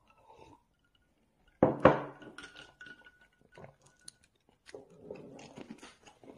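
Dishes and objects being handled on a table: a sudden loud knock about a second and a half in, then lighter clinks and rustling.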